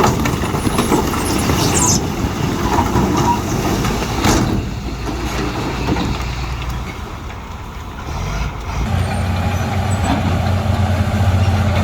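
Heavy diesel earthmoving machinery working: loud engine noise mixed with clatter, easing off in the middle, then a steady deep engine drone that comes in strongly about nine seconds in.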